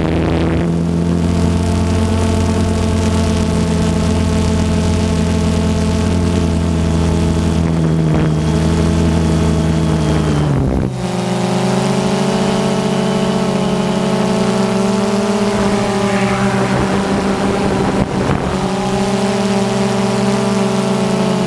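Electric motor and propeller whine of an FPV model aircraft, picked up by its onboard camera: a steady stack of tones that shifts in pitch about halfway through, with a brief dip there.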